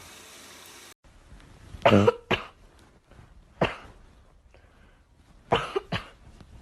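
Five short, sharp coughs at uneven intervals: two close together about two seconds in, one in the middle, and two more close together near the end.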